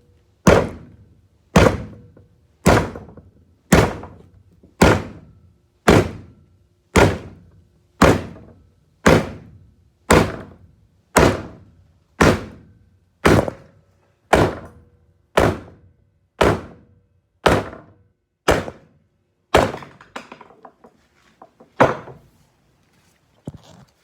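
Freshly sharpened hatchet chopping into a wooden stick: a steady series of thunks about once a second, some nineteen blows, then stopping about twenty seconds in, followed by a couple of lighter knocks.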